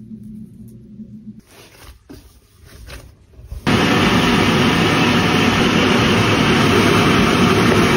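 Ground beef frying in a steel pan, a loud steady sizzle that starts suddenly a little over three and a half seconds in, while processed onion is stirred into the mince. Before it, only quieter scattered sounds.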